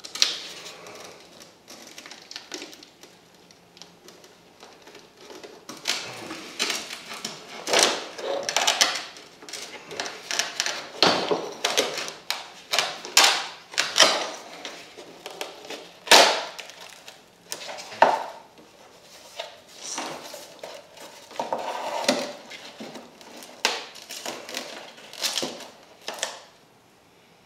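Irregular sharp plastic clicks, snaps and creaks as an old 1981 Camaro tail light lens is pried off its housing by hand. They are sparse at first and come thick and fast after about six seconds. The lens is held fast by silicone on the inner gasket.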